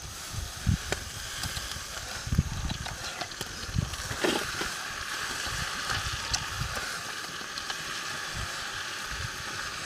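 Greens sizzling in a wok over an open wood fire as they are stirred in with a stick. The hiss grows louder about four seconds in and holds steady, with scattered low knocks and small crackles.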